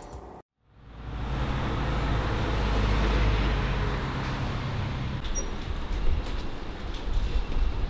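City street traffic: a motor vehicle's engine running close by over road noise, swelling for a few seconds and then easing into general street noise.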